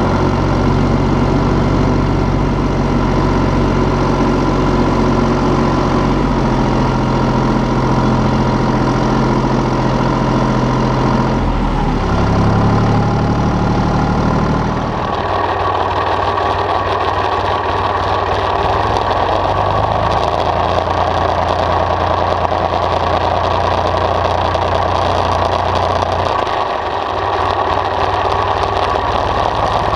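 IHC 423 tractor's diesel engine running steadily while the tractor drives. The engine note changes about halfway through, becoming lower and rougher.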